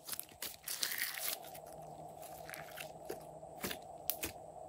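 Glossy slime being squeezed and folded by hand, giving sticky clicks and small pops: a quick run of them in the first second or so, then a few single clicks near the end.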